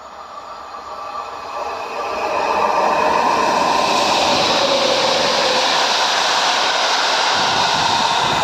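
Electric locomotive hauling a passenger train approaching and passing close by: the rumble of wheels on rail grows over the first couple of seconds, then holds as a loud, steady rush as the carriages go by.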